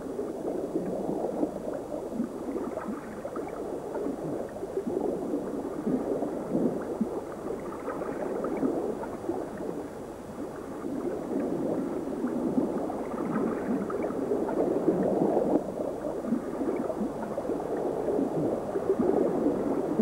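Underwater bubbling and gurgling: a dense, crackly stream of bubble sounds that swells and eases in slow waves.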